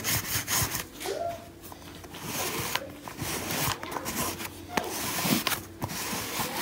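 Sticky lint roller rolled back and forth over black fabric trousers, its adhesive sheet pulling off the cloth with each pass in a series of noisy strokes.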